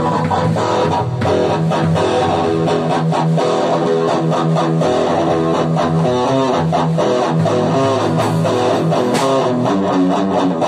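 Electric guitar played through an amplifier in a black metal style: a riff of rapidly picked notes that runs without a break.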